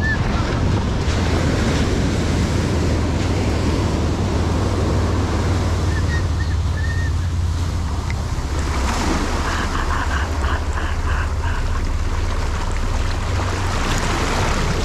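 Ocean surf washing up on a sandy beach, waves breaking into foam close to the microphone. Wind rumbles on the microphone.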